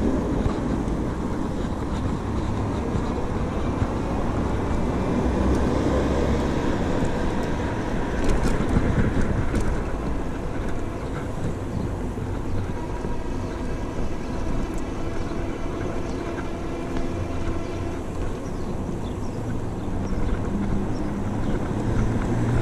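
Bicycle riding on city pavement, with a steady rumble of wind on the microphone and tyre noise from the road. A few sharp clicks come about eight to nine seconds in.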